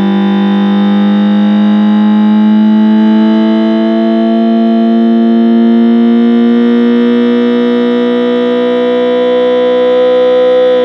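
Homemade electronic engine-sound generator imitating a Daihatsu JB-DET turbocharged inline-four, held at a steady rev as a continuous multi-tone drone. The pitch creeps slightly higher, then eases off a little near the end.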